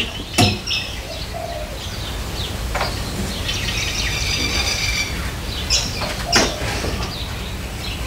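A few sharp knocks and clanks from a crane, its chain and a motorcycle slung in straps as the bike is lowered, with a bird chirping a run of high notes for about two seconds in the middle.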